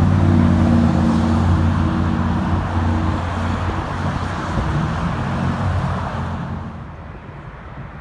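Road traffic passing close by: cars running with a low engine hum and tyre rush, louder for the first six seconds, then fading.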